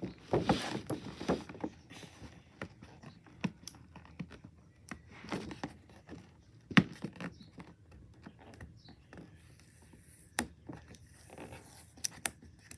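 Fingers picking and scraping at packing tape on a cardboard box, with scattered sharp clicks and taps as the box is handled; one louder knock comes just under seven seconds in.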